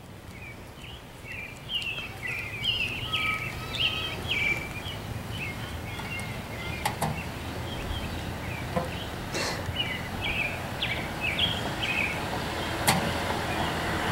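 Outdoor ambience of birds chirping and twittering over a low steady rumble, with a few sharp clicks.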